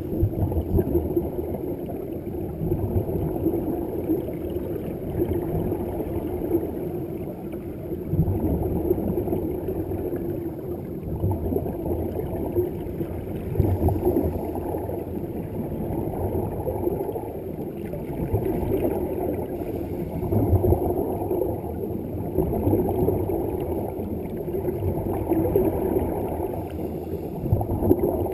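Muffled underwater bubbling and rumble of air escaping from scuba breathing gear, recorded underwater, swelling in surges every few seconds.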